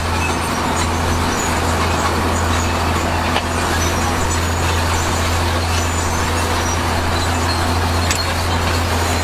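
Heavy diesel earthmoving machinery running steadily, a constant low engine drone with two brief knocks, one about three seconds in and one near the end.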